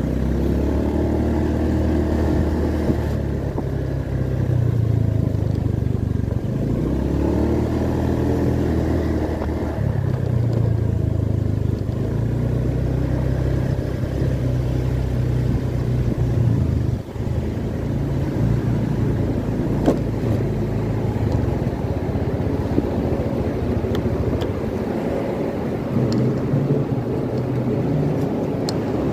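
Honda Beat scooter's small single-cylinder engine running at low riding speed, its note rising and falling as the throttle is opened and eased off, steadier in the middle.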